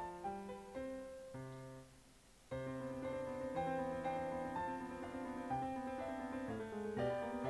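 Background piano music. It drops low for a moment about two seconds in, then comes back suddenly.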